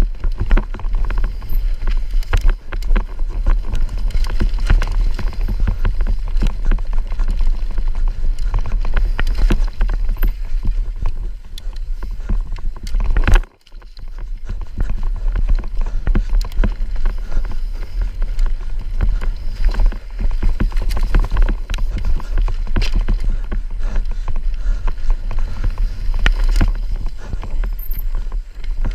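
Mountain bike running fast down a rough downhill trail: heavy wind buffeting on the microphone over a constant clatter of knocks and rattles from the tyres, chain and frame. About 13 seconds in the noise cuts out for a moment, then comes back.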